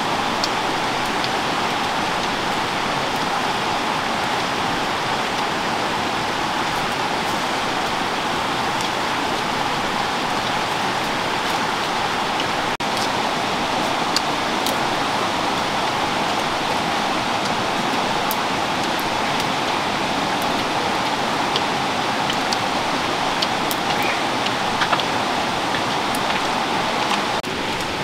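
Steady, even rushing noise like rain or running water, with a few faint clicks scattered through it. It drops out for an instant about halfway in.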